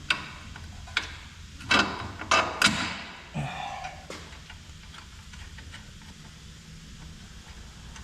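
Hand tools knocking and clicking against the metal of the shock mount: a few scattered clicks, a cluster of loud clanks about two seconds in, then faint ticks.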